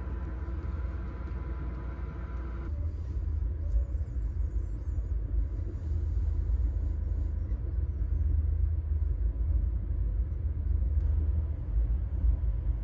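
Low, steady rumble of a moving passenger train, the Amtrak Coast Starlight, heard from inside the car. The higher part of the sound changes abruptly about three seconds in.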